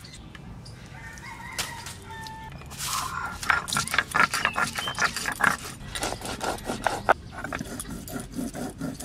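Stone muller rubbed back and forth on a flat grinding stone (sil-batta), crushing whole cumin and coriander seeds. It makes a quick rhythm of gritty scraping strokes that starts about three seconds in.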